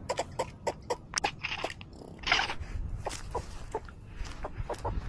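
Irregular close clicks and crunches, with two short scraping rustles, from a cat brushing its fur and paws against a phone lying in dry leaves and pine needles.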